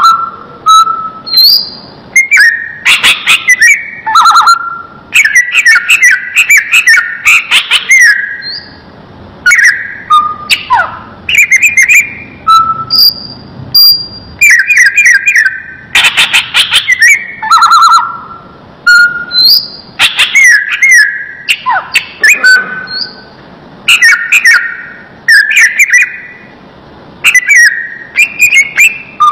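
A green leafbird (cucak ijo) singing: loud phrases of sharp chirps and short whistled notes, repeated every second or two.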